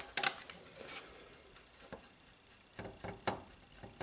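Small sharp clicks and taps of a metal hex driver and small screws against an RC helicopter's carbon-fibre frame and motor mount as the mount screws are fitted. The clicks are scattered, loudest at the start and in a cluster about three seconds in.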